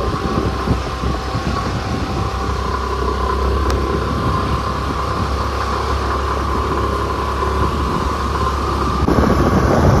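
Steady rumble of a car driving on a road: engine, tyre and wind noise heard from inside the moving vehicle, with a slight change in the sound about nine seconds in.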